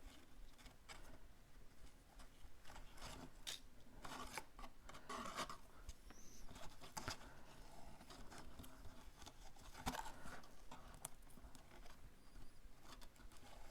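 Faint rustling and small clicks of hands handling cardstock and twine, threading a paper tag onto the twine.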